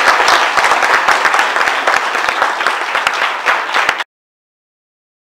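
Audience applauding, a dense patter of many hands clapping, which cuts off abruptly about four seconds in.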